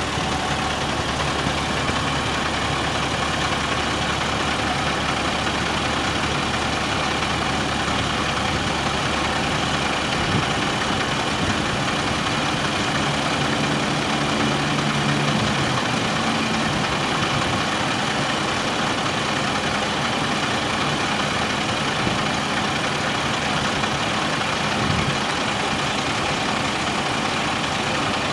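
International DT530E 8.7 L inline-six diesel of a 1999 International 4900 dump truck idling steadily while its hydraulic hoist tips the dump bed up. Its note shifts slightly about a third of the way through.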